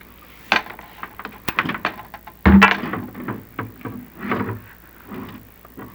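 Irregular knocks, clicks and scraping as a chimney inspection camera is worked down a damaged clay-tile flue, with one heavy thump about two and a half seconds in.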